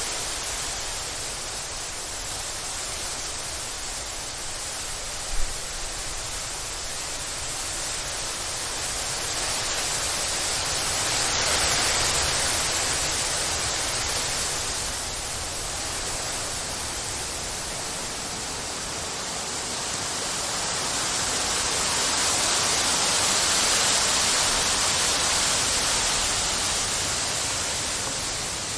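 Storm wind blowing hard as a steady rushing noise that swells and eases in slow gusts, strongest about a third of the way in and again near the end, with a brief knock about five seconds in.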